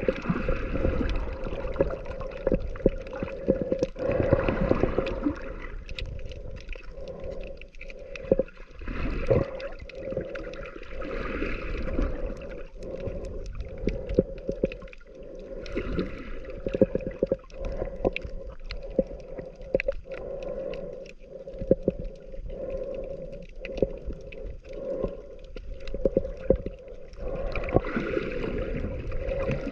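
Sea water heard underwater: muffled sloshing and gurgling with many small clicks and pops over a steady low hum, and a hiss that swells every few seconds.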